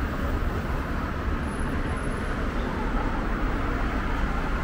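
Steady city road traffic noise: cars and scooters running along the street, a constant even hum with no single event standing out.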